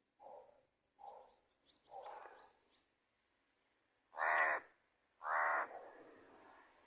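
Crows cawing: a few short, softer calls, then two loud, harsh caws about a second apart.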